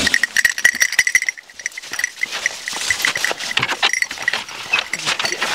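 Rapid metallic jingling and rattling from hunting beagles' collar hardware as the dogs are handled. A small bell-like ring pulses quickly for the first second or so and briefly again later, over many light clicks and knocks.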